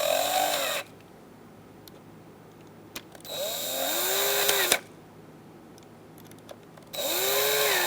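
Drill with a Phillips bit driving small screws, running in three short bursts, each rising then falling in pitch. The first stops under a second in, the second comes in the middle, and the last starts near the end.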